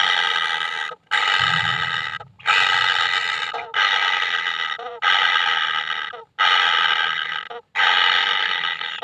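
Kingfisher chick giving harsh, rasping begging calls, about seven in a row. Each call lasts roughly a second, starts abruptly and fades, with brief gaps between.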